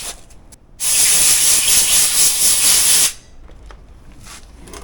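Compressed air blown from an air nozzle in one steady hiss of about two seconds, that starts and stops abruptly, blowing out the dirty air filter of a Honda small engine.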